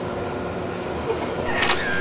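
Steady background hum of room tone, with a brief high sound near the end whose pitch dips and rises.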